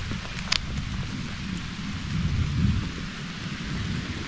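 Steady rain hiss with an uneven low rumble underneath, and one sharp tick about half a second in.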